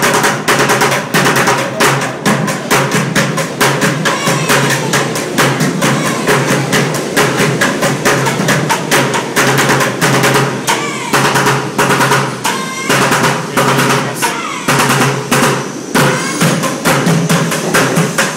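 Upturned plastic buckets played as drums in fast, dense rolls and beats, with no break.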